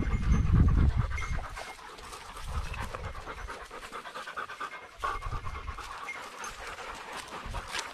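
Hunting dogs panting fast and hard close to the microphone after running through the brush. A low rumble on the microphone over the first second is the loudest part.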